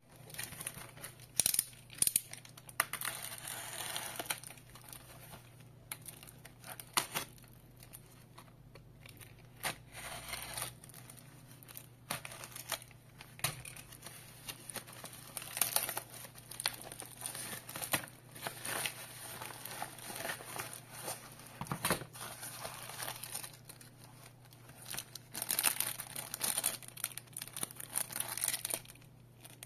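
Plastic packaging crinkling and tearing as a small parcel is unwrapped by hand, with frequent sharp clicks and taps. Near the end comes the rustle of a clear plastic bag being handled.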